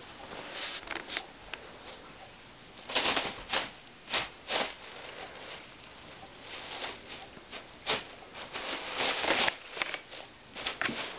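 Thin plastic shopping bag crinkling and rustling in irregular bursts as a cat shifts around inside it, loudest about three seconds in and again near nine seconds.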